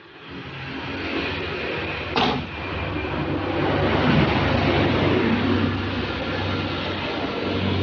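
Mitsubishi L300's 2.5-litre diesel engine running with a heavy, steady clatter that swells up in the first second, with a single sharp clack about two seconds in.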